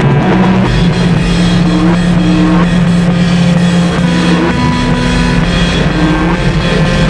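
Harsh noise industrial music: a loud, dense wall of distorted noise with droning tones that step to new pitches every second or so.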